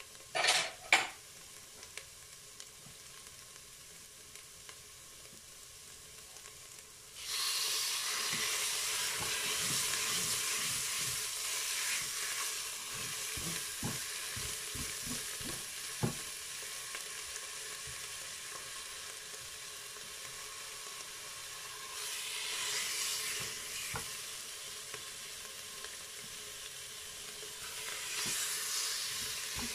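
Marinated chicken pieces frying in hot oil in a Cookeo multicooker bowl: a faint sizzle of onions, then a sudden loud sizzle about seven seconds in as the chicken goes in, swelling again twice near the end. Tongs knock lightly against the pot as the pieces are placed and turned.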